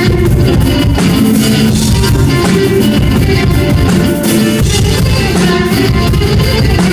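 Live rock band, electric guitar and drum kit, playing loud and continuous.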